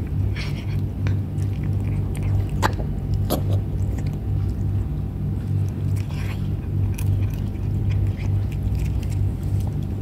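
A cat chewing and biting chunks of food, with scattered short clicks and crunches, over a steady low hum.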